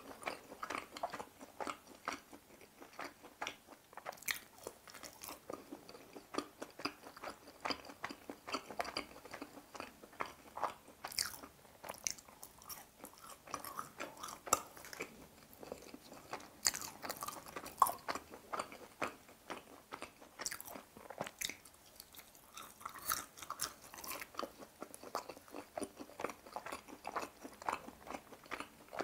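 Close-miked chewing of crunchy fried, breaded food, a cheese stick dipped in teriyaki sauce: many small irregular crunches and bites throughout.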